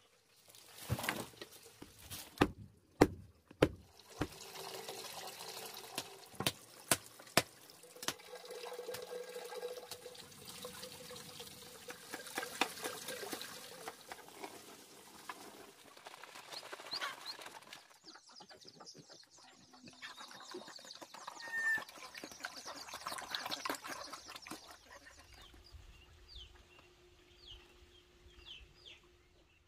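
A run of sharp knocks and thuds, then water sloshing and splashing as a large pot of steaming water is stirred with a wooden paddle. Chickens cluck and chicks chirp with short high calls in the later part.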